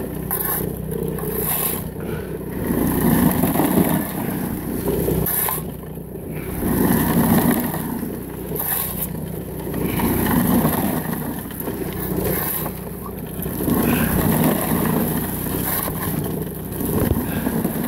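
A steel shovel scraping and digging into gravelly dirt, stroke after stroke about every two to three seconds, over the steady running of a small gas-engine water pump.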